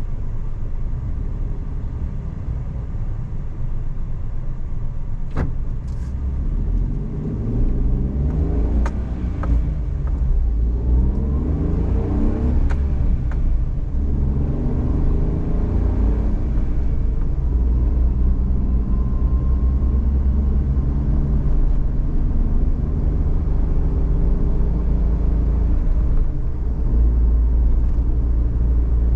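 Suzuki Every DA17V kei van driving, heard inside the cabin: a steady low road and engine rumble. Between about 7 and 16 seconds the engine note rises several times, each climb breaking off as the 5AGS automated manual gearbox shifts up while the van accelerates. A few sharp clicks sound in the first half.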